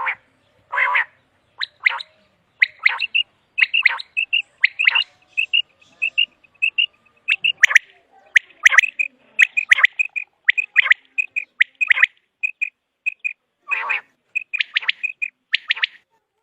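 Common quail calling over and over: quick runs of short, high chirps, some louder and harsher than the rest.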